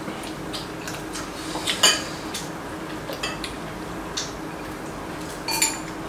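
Chopsticks tapping and clinking against ceramic bowls and the stew pot in scattered single strikes, the loudest about two seconds in and again near the end, over a faint steady hum.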